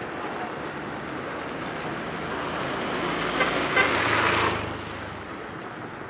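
A motorcycle engine passing close by: it grows louder to a peak about four seconds in, then fades quickly, over street noise.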